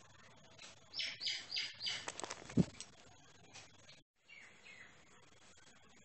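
Young bulbul calling: four short, high chirps in quick succession about a second in, then two fainter chirps after the four-second mark. A sharp knock comes between them and is the loudest sound.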